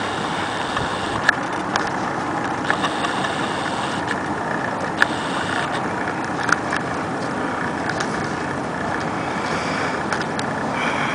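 Steady wind rushing over the microphone on an exposed ridge, with a few sharp clicks over it.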